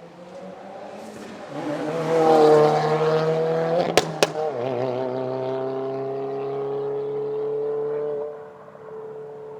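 2022 Subaru WRX turbocharged 2.4-litre flat-four engine running through an exhaust with the secondary cat, resonator and mufflers deleted. It pulls harder and gets louder over the first two seconds, and gives two sharp pops about four seconds in as its pitch dips. Then it holds a steady drone and backs off near the end.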